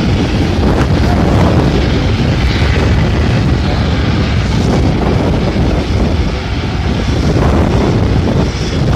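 Strong wind buffeting the microphone in a steady gusty wind of about 25 mph, a loud, rumbling noise that rises and falls.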